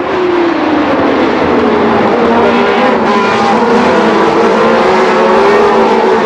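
1977 Formula One race cars running flat out, several engine notes overlapping, one of them dropping in pitch during the first second.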